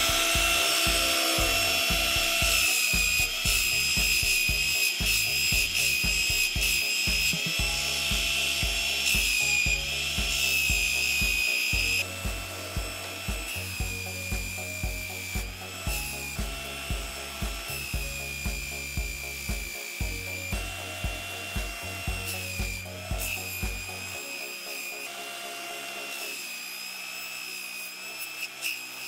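DeWalt electric drill driving a homemade plywood drum sander, its motor whining high and steady. The pitch sags briefly each time a board is pushed under the sandpaper drum. The whine becomes quieter about twelve seconds in.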